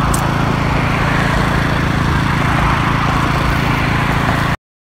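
Small engine running steadily at a constant speed, cutting off abruptly near the end.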